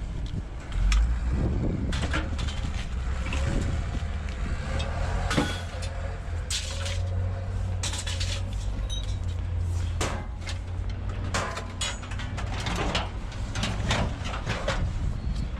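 A vehicle engine runs with a steady low rumble, with many short, sharp knocks scattered over it.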